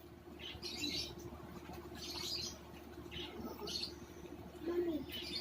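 Close-up eating sounds: a hotdog being bitten and chewed, with several short wet smacks of the mouth. A short "mm" comes near the end.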